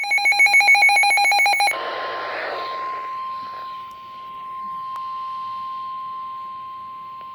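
Loud, rapid electronic beeping for about the first second and a half. Then a short burst of radio static and the NOAA Weather Radio warning alarm tone: one steady 1050 Hz tone over faint static, which signals that an emergency alert message is about to be broadcast.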